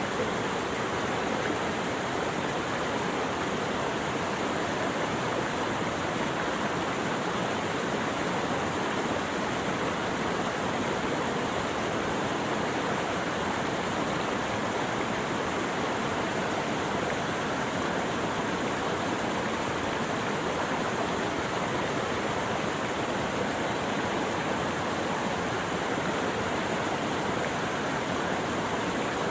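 Steady rushing water, an even, unbroken wash of noise with no birdsong or other sounds on top.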